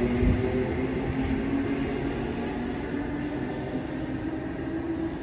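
Sydney Trains double-deck electric train pulling out of the platform and running off into the distance: a steady rumble with a low motor hum of a few held tones.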